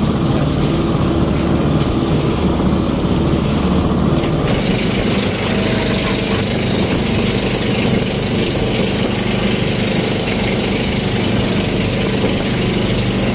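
Engine of a motorized outrigger boat running steadily under way, with a hiss of wind and water over it.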